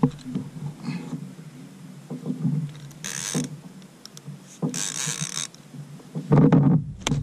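Abu Garcia 6500 baitcasting reel being cranked against a big catfish that is pulling hard, its gears and drag creaking and clicking, with two short hissy bursts and a louder low burst near the end.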